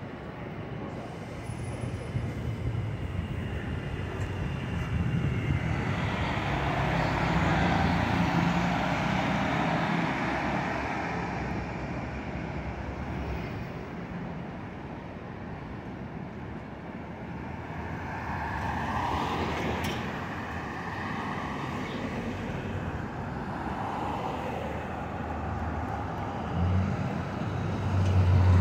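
City street traffic: cars passing on the avenue, their engine and tyre noise swelling and fading, loudest about eight seconds in and again around twenty seconds, over a low steady rumble.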